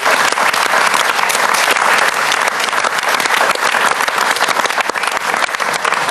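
Sustained applause from a standing studio audience, many hands clapping at once, holding steady and tailing off just at the end.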